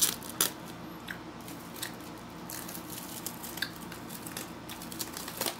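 Thin clear plastic film crinkling and crackling in irregular bursts as it is peeled off a glass plate, over a steady low hum.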